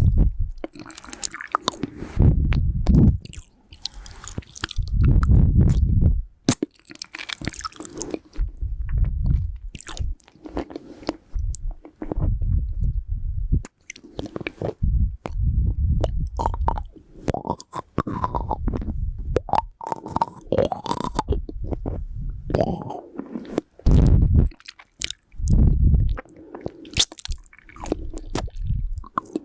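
Close-miked mouth sounds of eating a lollipop: wet clicks and crunches of hard candy in the mouth, with repeated low gusts of nose breath blowing onto the microphone every few seconds.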